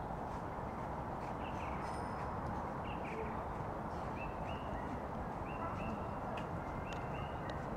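A dense chorus of frogs croaking in the breeding season. Over it, a bird gives several short, flat whistled calls in the middle of the stretch.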